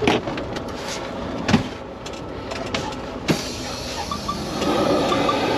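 Semi-truck diesel engine idling, heard inside the cab, with a few sharp clicks and knocks. A bit over three seconds in, a steady hiss comes on and holds.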